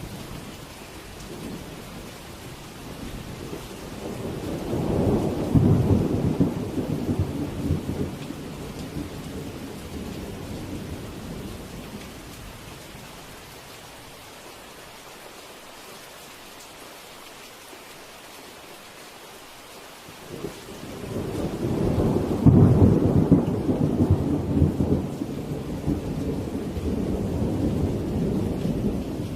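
Steady rain with two long rolls of thunder. The first builds about four seconds in and fades over several seconds. The second starts around twenty-one seconds in and rumbles on until near the end.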